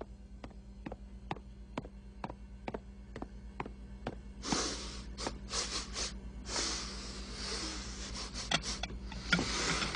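Light ticks at a steady pace, about two a second, for the first four seconds or so. Then an animated pig snorting and sniffing in several short noisy bursts.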